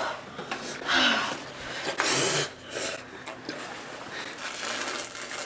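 A person breathing hard, with a few loud, hissy exhales about a second apart, reacting to the burn of an extremely spicy chip.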